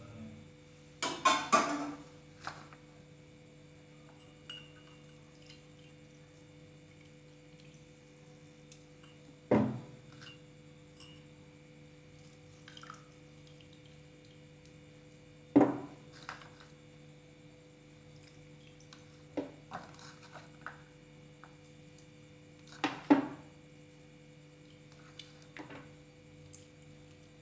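Kitchen glassware and utensils clinking and knocking now and then, a few sharp strikes several seconds apart, the first cluster about a second in ringing briefly. A steady low hum runs underneath.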